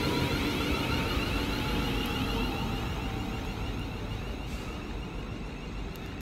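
A train running past and moving away, its noise fading steadily, with a faint whine that slides slightly down in pitch.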